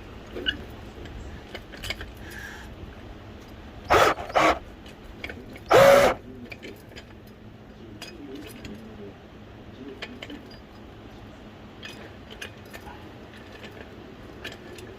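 Metal jacking gear clinking and clanking as a car is jacked up: scattered light clinks, two sharp clanks about four seconds in, and a louder, longer clank with a ringing note about six seconds in.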